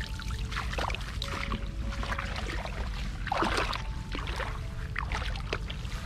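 Water splashing and pouring as a woven bamboo basket is scooped through a shallow muddy puddle and lifted, water streaming out through its weave. Irregular splashes, the biggest about three and a half seconds in.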